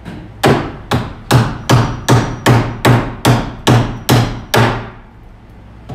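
Claw hammer striking a clothing anti-theft security tag laid on a wooden workbench: eleven sharp blows in a steady run of about two and a half a second, then stopping. The blows are meant to break the tag open so it comes off the T-shirt.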